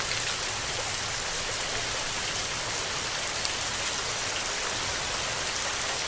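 Steady rain falling, an even hiss of countless drops with no break or change.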